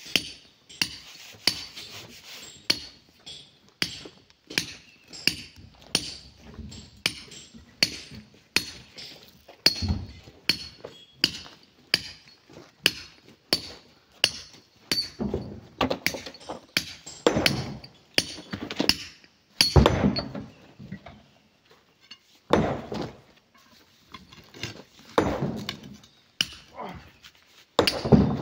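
A steel pry bar striking and chiselling at a boulder: sharp ringing clinks of metal on stone, a little faster than one a second. Heavier, deeper knocks come in the second half.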